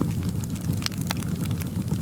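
Wood fire crackling in a fireplace: a few sharp, irregular pops over a steady low rumble of the flames.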